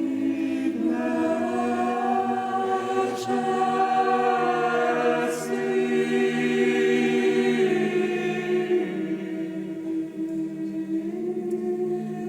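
Unaccompanied choir singing a slow chant in long held chords.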